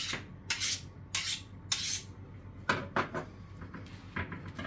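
Chef's knife stroked along a honing steel: four scraping strokes about two a second. Then, near the middle, a clatter and a few light knocks as the steel is put down on the wooden cutting board.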